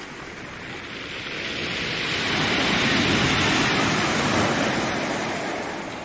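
Storm surf on a pebble shingle beach: one wave rushes up the stones and washes back. It swells to a peak about three seconds in and fades near the end.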